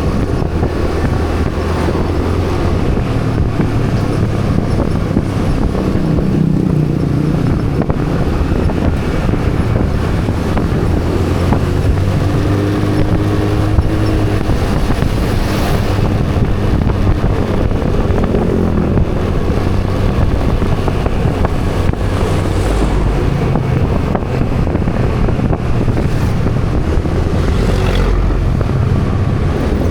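A motor vehicle's engine running steadily while travelling along a road, its low hum shifting up and down a little in pitch, with road and wind noise.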